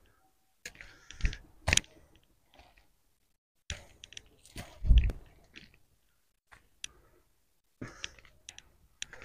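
Uneven footsteps crunching on dry pine needles and loose rocks as a person climbs a rocky slope, in scattered steps with pauses, and a heavier low thump about five seconds in.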